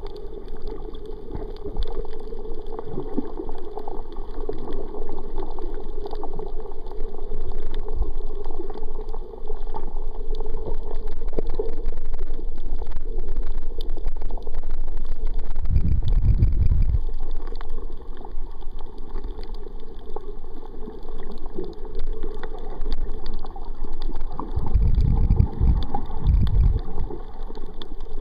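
Muffled underwater sound heard through a camera's waterproof housing: a steady drone and swirl of water, with a low thud past the middle and a pair of low thuds near the end.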